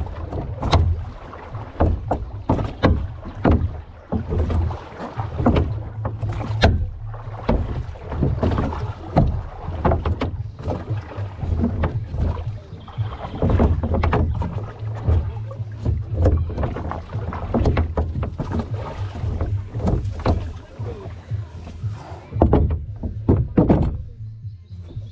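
Rowboat being rowed with a pair of oars: irregular knocks and splashes from the oars working in their metal oarlocks, over a steady low rumble.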